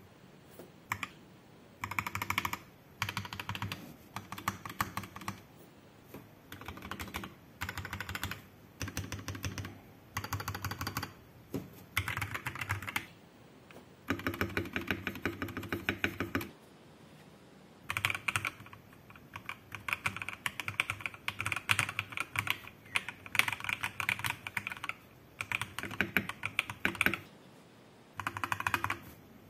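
Royal Kludge RK84 mechanical keyboard being typed on in quick bursts of key presses with short pauses between them. It is modded with lubed and filmed Durock EV-01 tactile switches, PBT keycaps, lubed plate-mount stabilizers and foam and tape mods.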